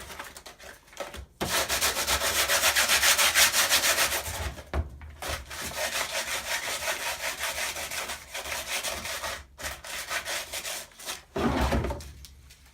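Hand-sanding the inside of a cured fiberglass shell with 80-grit sandpaper: rapid back-and-forth rasping strokes in several runs with short pauses, scuffing the glossy surface dull so the next layers will bond.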